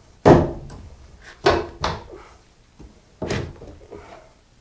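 Hammer striking a thick wooden block nailed into the wall framing, knocking it loose: four hard blows, the first the loudest, each ringing briefly.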